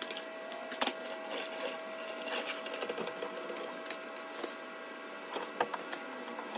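Hydraulic floor jack being moved and worked under a car's rear suspension wishbone: a run of small metallic clicks and rattles, with a couple of sharper knocks, over a steady faint hum.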